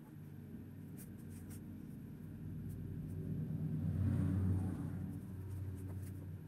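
A low rumble that swells to its loudest about four seconds in and then fades, with a few faint clicks about a second in.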